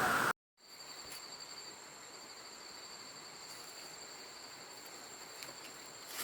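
Faint, steady insect chirring: two high tones held without a break over a light hiss. It starts after a brief moment of dead silence about half a second in.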